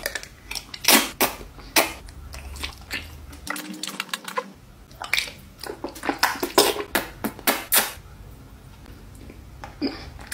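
A person slurping and chewing a mouthful of sauce-soaked instant noodles off a spoon: a run of wet smacks and clicks with short gaps between them.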